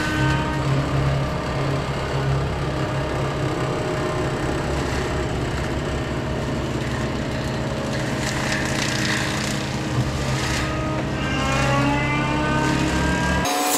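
Caterpillar compact track loader's diesel engine running steadily at high speed, driving a forestry mulching head that is chewing into standing trees, with a rising whine near the end.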